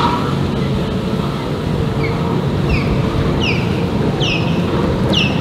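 Stand-up jet ski running on open water, its engine and spray heard as a steady rushing noise with wind on the microphone. From about two seconds in, a series of short, high chirps, each falling in pitch, repeats roughly every three-quarters of a second and grows louder.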